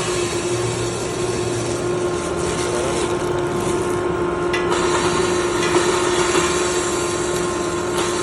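Stainless-steel pre-roll grinder running: a steady motor hum over a constant grinding rush, with faint ticks.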